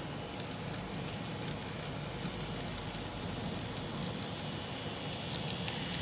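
N-scale model train running along the layout track: a steady rolling rattle of small wheels on rail, with scattered light clicks over rail joints and turnouts, growing a little louder toward the end as it nears.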